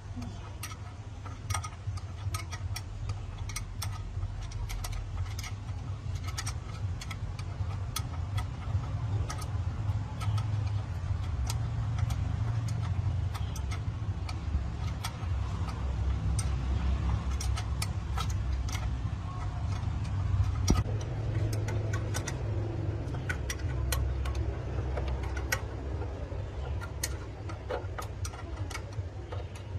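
A truck engine running steadily, with many sharp clicks coming irregularly over it.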